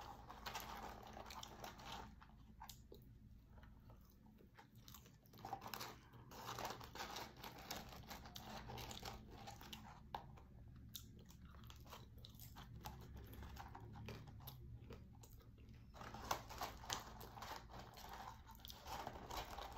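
A person chewing and crunching French fries with the mouth close to the microphone: faint, irregular runs of small crunches and wet mouth sounds with short pauses between mouthfuls.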